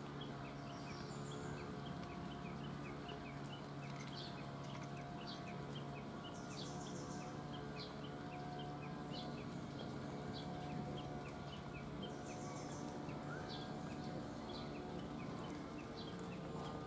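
Outdoor ambience: a steady low hum under a run of short, evenly repeated high chirps, about three a second, with a few brief higher bird-like calls now and then.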